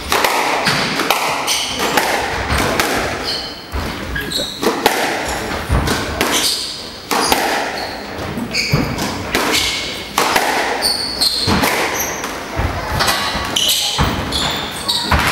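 Squash rally: the ball cracks off rackets and walls again and again at an irregular pace, with short high squeaks from the players' shoes on the wooden court floor.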